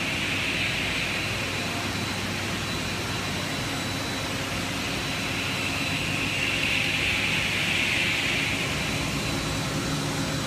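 Steady hum and hiss of running industrial machinery, with a thin high whine throughout and a hissing component that swells near the start and again about six to nine seconds in.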